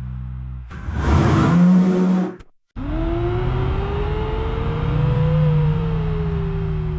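A car engine revving in a loud, rough burst, then after a sudden break an engine note climbing steadily in pitch for a few seconds before easing slowly back down as the car speeds along.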